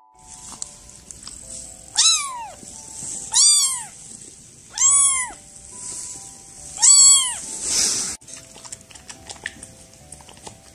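Silver tabby kitten meowing four times, each a short, high call that rises and falls in pitch, over light background music.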